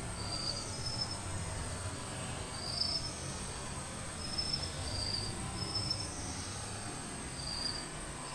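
Insects droning steadily at a high pitch, with short high chirps repeating every second or so, over a low rumble.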